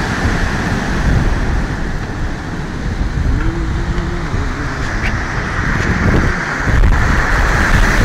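Rough sea surf breaking and washing over rocks, with strong wind buffeting the microphone in a steady low rumble.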